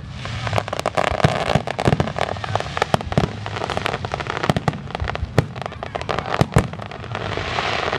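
Aerial fireworks display: a rapid run of sharp bangs from shells bursting close together, over a steady hiss between the reports.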